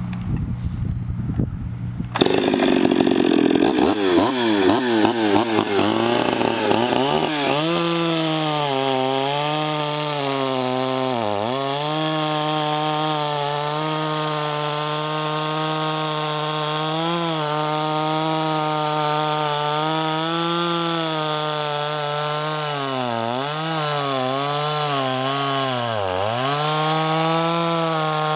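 Stihl 026 two-stroke chainsaw with a modified, opened-up muffler, idling, then opened up about two seconds in and revved up and down. It then cuts into the end grain of a log at full throttle, the engine pitch dipping briefly several times as the chain is leaned into the wood.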